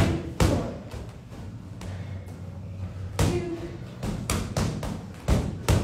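Gloved punches landing on a free-standing punching bag, each a sharp thud. A couple of punches come at the start, then after a pause of nearly three seconds a quick run of five more.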